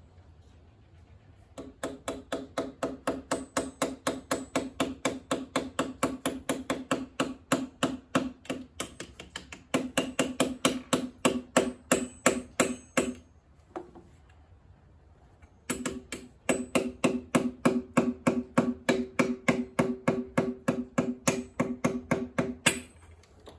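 Rapid light taps, about four a second, driving a piston down through a ring compressor into the cylinder bore of a GM Ecotec 2.4 L engine block. Each tap rings with a low tone. There are two long runs of tapping, with a pause of about two seconds in the middle.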